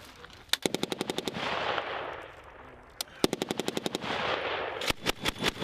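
M240B machine gun firing bursts of automatic fire at about a dozen rounds a second, with echo trailing each burst. There are two bursts of about a second each, and a third begins near the end.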